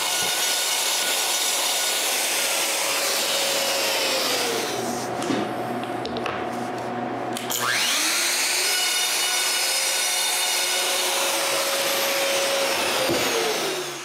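Plunge router running, with a dust extractor drawing through a hose, as it cuts a shallow round recess in a plywood shelf through a template. The motor's pitch drops about five seconds in, rises again about eight seconds in, and drops once more near the end.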